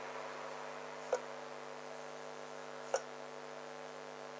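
Faint steady electrical hum with two short, sharp clicks, about a second in and again about two seconds later.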